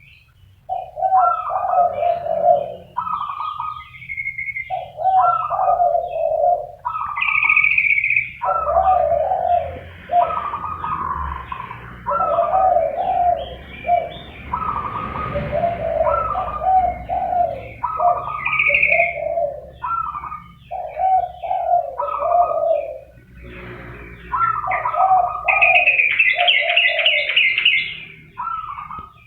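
Zebra doves and spotted doves cooing, one short cooing phrase after another with brief gaps between them. Higher chirps come in over the coos now and then, most strongly near the end.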